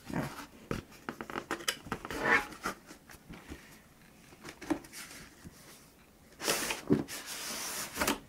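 Cardboard graphics-card box being handled: scattered taps, clicks and rustles, then near the end a longer scraping rustle as the black inner box slides out of its printed cardboard sleeve.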